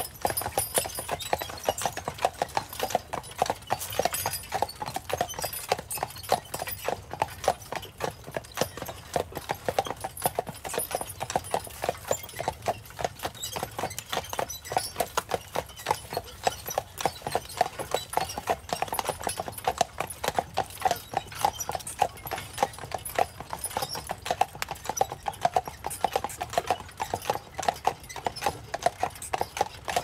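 A pair of carriage horses' hooves clip-clopping on a paved trail in a steady, even rhythm.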